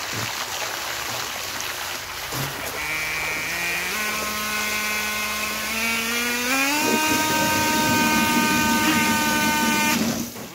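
Small RC jet pump with a 3D-printed stainless steel impeller running in water: a motor whine climbs in pitch in steps, about 4 s in and again around 7 s, over the rush of the water jet. It cuts off suddenly near the end.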